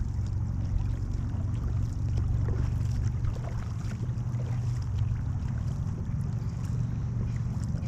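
Water washing along the hull of a multi-person racing canoe as the crew paddles it, over a steady low rumble.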